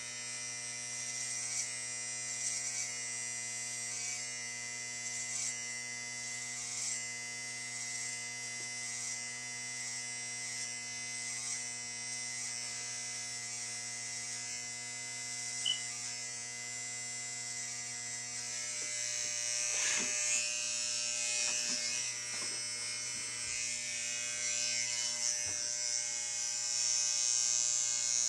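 Electric hair trimmers buzzing steadily while edging a hairline, with a few brief scratchy touches of the blade about two-thirds of the way through.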